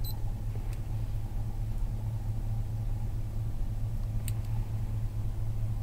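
Cadillac Escalade's V8 engine idling, a steady low drone heard from inside the cabin. A short electronic beep sounds at the start and a small click comes about four seconds in.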